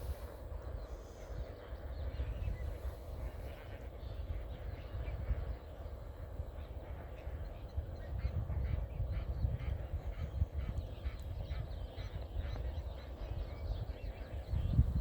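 A large flock of flamingos calling: a dense chatter of many short calls, thickening from about four seconds in, over a steady low rumble.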